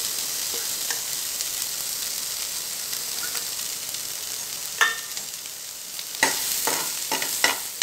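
Chopped onions and green chilli sizzling in butter in a metal frying pan, a steady hiss. About five seconds in a spatula clinks against the pan once, and from about six seconds it scrapes and taps the pan again and again as the onions are stirred.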